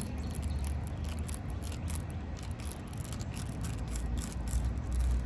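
Spiral tire reamer being twisted in and out of a puncture in a car tire's tread, giving faint, irregular scratchy rasping as the steel tool rubs against the rubber to widen the hole for a plug. A steady low rumble lies underneath.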